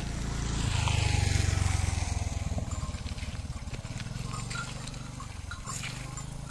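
Motor scooter engine passing close by, loudest about a second in with a falling pitch, then fading as it rides away.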